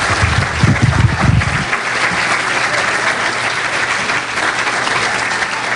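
Large audience applauding steadily. In the first couple of seconds there are low thumps as a handheld microphone is fitted back into its stand.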